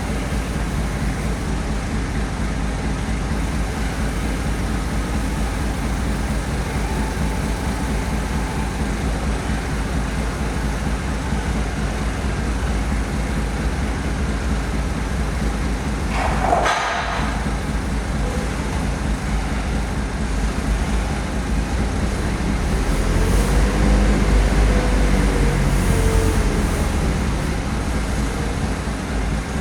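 Road traffic with a heavy vehicle's engine rumbling steadily. There is a brief sharp sound a little past the middle. Near the end a louder vehicle rises and falls as it passes.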